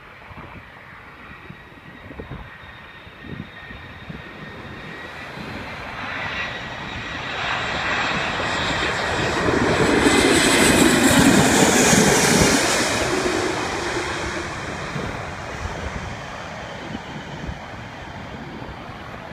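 Airbus A340's four turbofan engines as the airliner passes low overhead on final approach. The engine noise builds for about ten seconds to a peak as it passes over, with a high whine that drops in pitch, then fades as it moves away.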